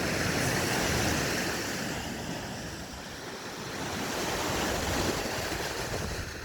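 Waves of Lake Nyasa breaking and washing on the shore, a rushing wash that swells about a second in, eases off, and swells again about five seconds in.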